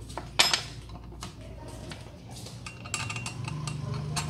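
Hard parts of an angle-grinder chainsaw adapter being handled and fitted by hand: one sharp clatter about half a second in, then small clicks and knocks as the guard is set in place.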